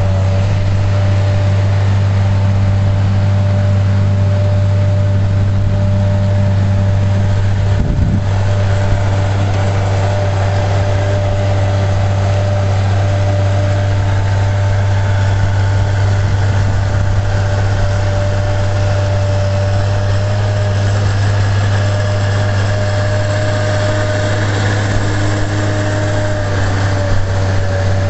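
Engine of a heavy-haulage rig carrying a wind turbine tower section, running steadily at low speed: a deep, even hum with a thin steady whine above it.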